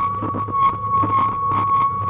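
A steady high-pitched squeal held at one pitch, over rattling and rolling noise from a wheeled pet trailer moving along a rough road.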